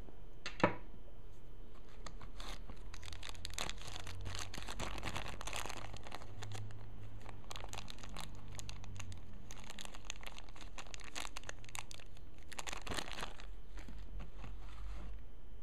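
A sharp click about half a second in, then the crinkling of a small clear plastic bag of screws being handled and rubbed between the fingers, on and off for about ten seconds.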